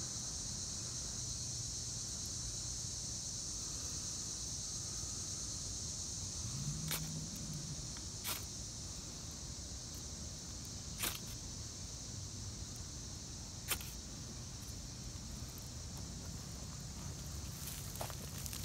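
A steady high-pitched insect chorus, with four short, sharp scrapes spread through the middle as a keychain ferro rod is struck with a piece of chert to throw sparks into cotton-ball tinder.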